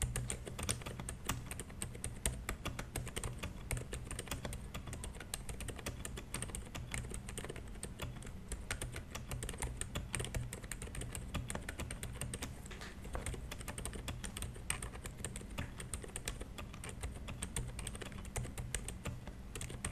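Continuous fast typing on a Xinmeng X87 gasket-mounted mechanical keyboard: a steady stream of irregular key clacks, several per second.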